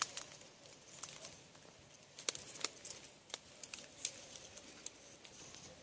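Faint quiet outdoor ambience with a scattering of small sharp clicks and ticks, most of them in the middle of the stretch.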